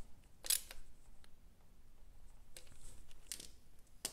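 Socket ratchet wrench clicking as a motorcycle stand pivot bolt is tightened: one ratchet stroke about half a second in, two fainter strokes later, and a sharp click near the end.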